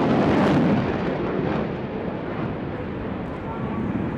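Jet roar of Mitsubishi F-2 fighters, each with a single afterburning turbofan, passing overhead during a simulated bombing run. A deep rumble that is loudest for about the first second, then eases to a lower roar.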